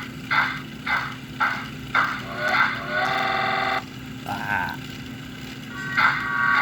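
Model steam locomotive sound system playing chuffs about two a second, then a short steam-whistle blast about 3 s in. A steady multi-note whistle- or horn-like tone starts near the end and carries on.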